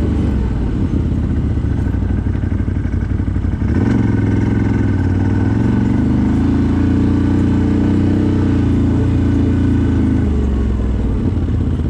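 CFMoto CForce 1000 ATV's V-twin engine running under way: steady, then opening up about four seconds in and held at higher revs before easing off near the end.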